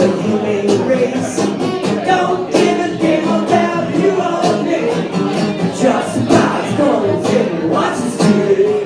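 Man singing live to his own strummed acoustic guitar, through a small PA in a bar room.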